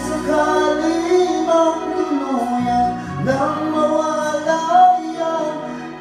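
A man singing into a microphone over a musical backing track. He sings two long phrases with gliding pitch, with a short break a little before halfway.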